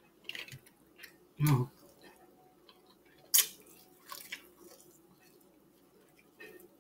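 Close-miked chewing and wet lip-smacking while eating buttery corn on the cob, in scattered short bursts, with one sharp smack about three and a half seconds in.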